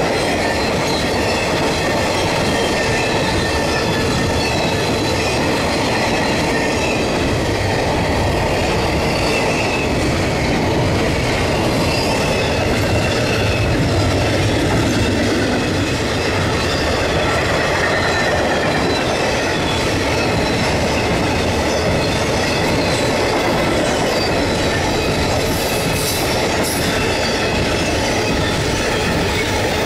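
Intermodal freight train's double-stack cars rolling past, a steady rumble of steel wheels on rail with faint high wheel squeal drifting in and out.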